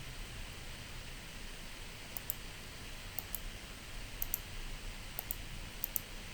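Short sharp clicks in close pairs, about one pair a second, starting about two seconds in, over a steady low hiss.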